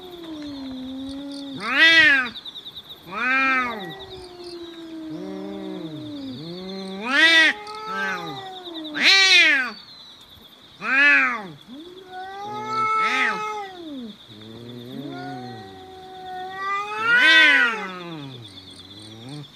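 Two cats yowling at each other in a fight standoff: a long, low drawn-out moaning yowl, broken by repeated louder wails that rise and fall in pitch.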